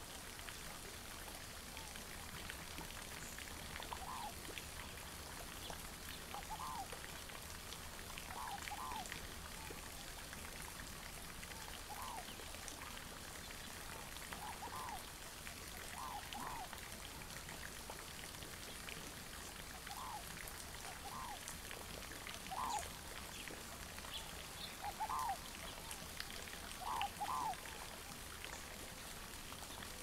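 Short calls from an animal in the marsh, repeated every second or two and often in pairs, the loudest near the end, over a steady hiss.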